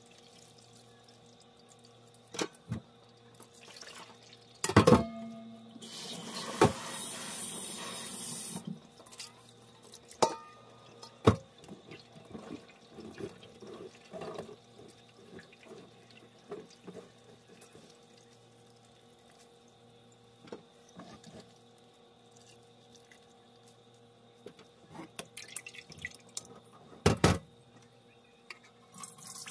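Soaked barley malt squeezed and rubbed by hand in a stainless-steel sieve over a bowl of water in a metal sink, with wet squishing and splashing. A few sharp clunks of metal on the steel sink come through, the loudest about five seconds in and near the end. Water rushes briefly about six seconds in.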